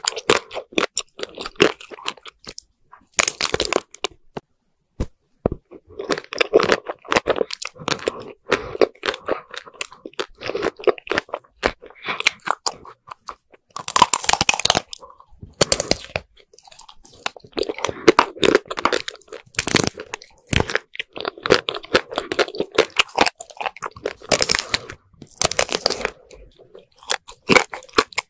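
Ice cream bars being bitten and eaten: the hard chocolate coating cracks and crunches in sharp snaps, followed by chewing. The crunches come in irregular bursts every few seconds, with short quiet gaps between them.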